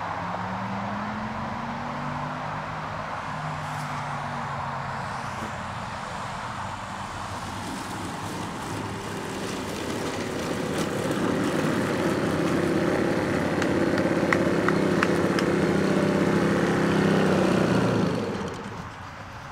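Petrol engine of a giant RC Piper J-3 Cub model aircraft, its pitch falling over the first few seconds as it comes in to land, then running louder and steady as it taxis up close on the ground. It cuts off about a second and a half before the end as the engine is shut down.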